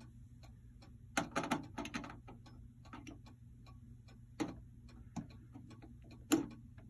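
Rimbault bracket clock ticking steadily. Louder clicks and knocks sound over the ticking, a cluster about a second in and single ones later, as a brass winding key with a wood handle is fitted onto the winding arbor.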